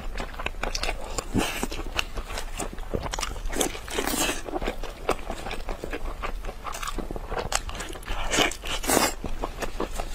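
Close-miked biting and chewing of glazed braised rib meat, with many small wet mouth clicks. There are louder bites about four seconds in and again near the end.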